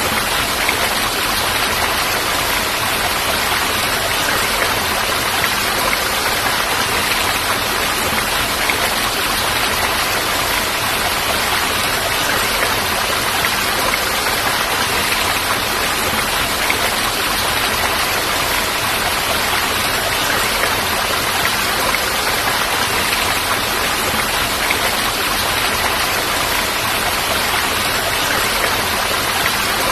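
Falling water rushing steadily, an even hiss with no breaks or single drops standing out.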